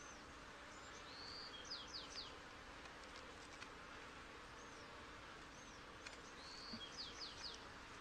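Faint, steady hum of honey bees from an open hive full of bees. A songbird sings a short phrase twice, about a second and a half in and again near the end: a whistle followed by several quick falling notes.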